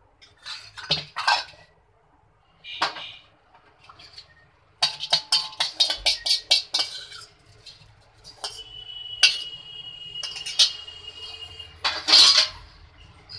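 Kitchen utensils clinking and knocking as a sieve and pans are handled, with a quick run of clicks about five seconds in and a thin, steady high tone for a few seconds later on.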